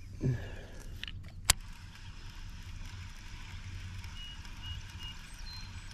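Baitcasting reel being cranked to retrieve a topwater lure, with steady handling and wind rumble, a single sharp click about a second and a half in, and three short faint high beeps near the end.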